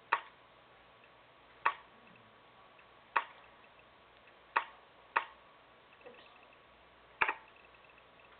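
Six single sharp clicks, one to two seconds apart at uneven spacing, as a button is pressed again and again.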